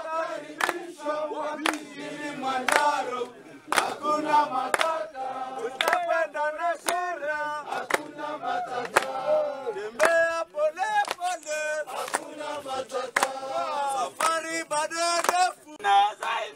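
A crowd of porters singing a Swahili song together, with sharp hand claps keeping time about once a second.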